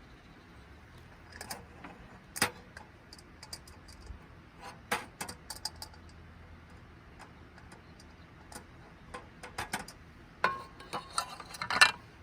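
Irregular clinks and clicks of small hard objects being handled, with single louder knocks early on and a busy flurry of clatter near the end.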